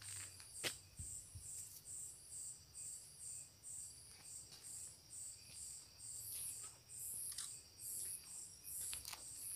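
Crickets chirping: a steady rhythm of high-pitched pulses, about two to three a second, over a faint continuous high buzz. A couple of light clicks stand out, about a second in and again near the end.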